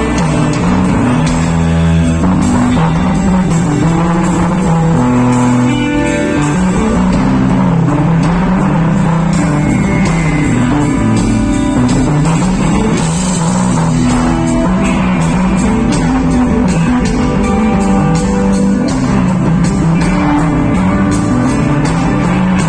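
Rock music: electric guitar over a moving bass line and a steady drum beat.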